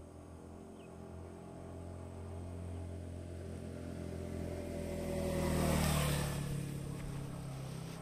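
Yamaha XSR 155's single-cylinder four-stroke engine running steadily. Its sound swells gradually to a peak with added hiss about six seconds in, then eases off a little.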